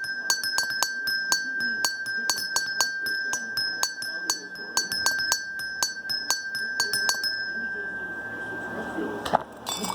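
Small bells of a homemade model bell tower struck in a quick, irregular Russian Orthodox-style peal, several clinking strikes a second over one steady high ringing bell. The strikes stop about seven seconds in and the ringing fades, then a sharp knock sounds near the end.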